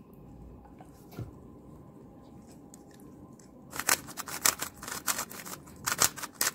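MoYu magnetic 3×3 speed cube being turned by hand, its plastic layers clicking into place in quick runs of clacks. The clacking starts a little past halfway through.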